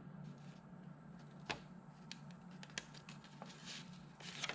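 A few faint, sharp clicks and light taps from small ignition parts being handled and fitted in a distributor, spaced out over a low steady room hum, with a small cluster near the end.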